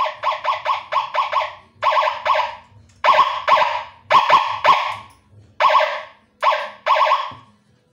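Electronic 12-tone siren module sounding through a 12-watt Narae NS170 horn speaker. It plays an alarm pattern of loud blasts: a fast run of short pulses at first, then longer blasts in pairs and singles with short gaps between them.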